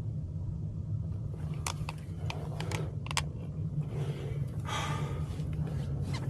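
A few sharp clicks and a short rustle over a steady low hum.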